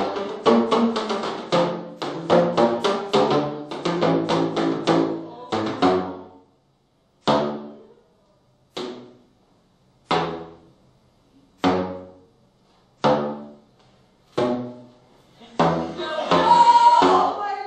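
A tune played on pitched drums. A fast run of struck notes gives way, about six seconds in, to single notes that ring and die away about every second and a half, and a louder, busier passage comes near the end.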